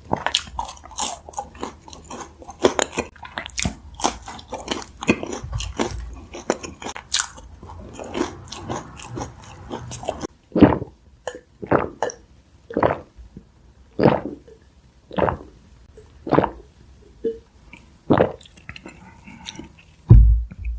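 A person biting and chewing sauce-coated fried chicken close to the microphone. There is dense crunching through the first half, then slower, regular chewing about once a second, with a low thump near the end.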